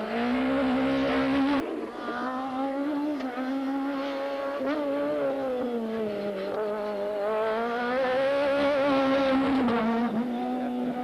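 Rally car engine under hard throttle, its revs climbing and dropping in long sweeps through gear changes and corners. A sharp click comes about one and a half seconds in.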